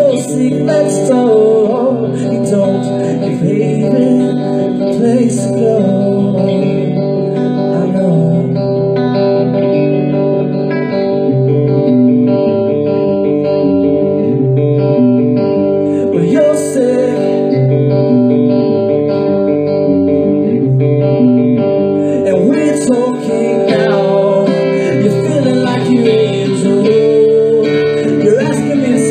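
Electric guitar played live, chords and picked notes ringing on steadily as part of a song.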